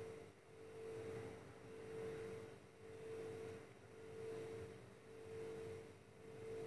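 Faint background music: a single soft, pure tone that swells and fades about once a second.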